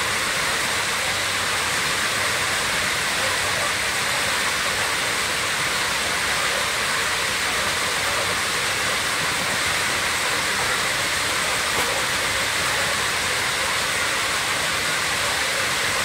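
Continuous din of a large flock of broiler chickens in a poultry house, thousands of calls merging into a steady, even wash of sound.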